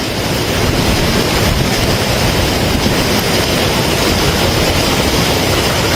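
Loud, steady roar of rushing floodwater.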